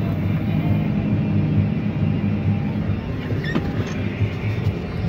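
Tractor engine running steadily with an even low rumble, heard from the cab, with a short high squeak about three and a half seconds in.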